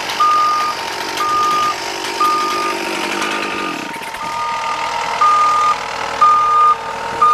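Vehicle back-up alarm beeping once a second, each beep about half a second long, over a running engine. The engine note drops about three to four seconds in, the beeping skips once there, then carries on.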